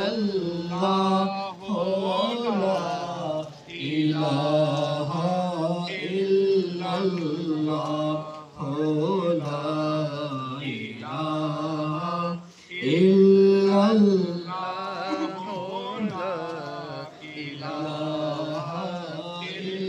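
A man's voice chanting an Urdu naat (devotional poem in praise of the Prophet) without instruments, heard over a microphone. Long, drawn-out melodic phrases with short breaths between them.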